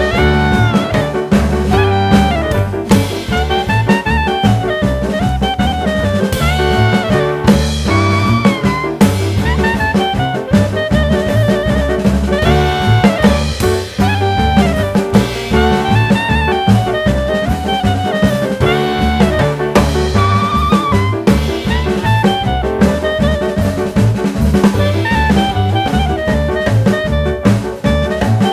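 Background music: a jazzy melody with wavering held notes over a steady drum beat and bass line.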